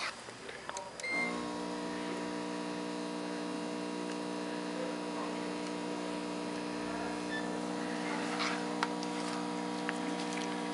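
Dental curing light beeping once about a second in as it switches on, then a steady hum while it shines to harden the composite mock-up on the teeth.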